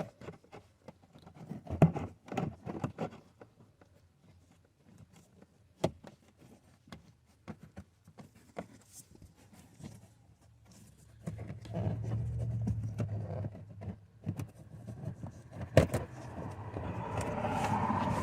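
Scattered plastic clicks and knocks as a filter-housing cover is handled and fitted back in place. From about halfway, a vehicle's low steady hum builds and swells, as if a car is passing by.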